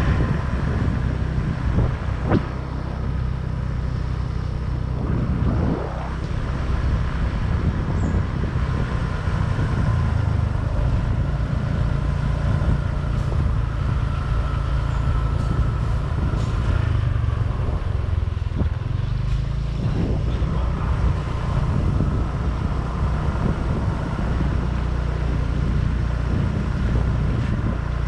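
Motorbike riding along a road: engine and wind noise, with a steady low rumble.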